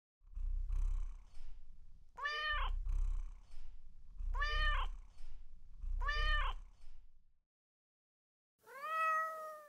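Domestic cat meowing four times over a low, continuous purr. The first three meows come about two seconds apart; the purr stops about seven seconds in, and after a short silence a fourth, longer meow follows.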